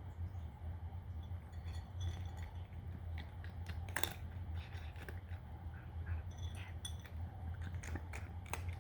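A cat crunching dry kibble: irregular sharp crunches and clicks, the loudest about four seconds in, over a steady low hum.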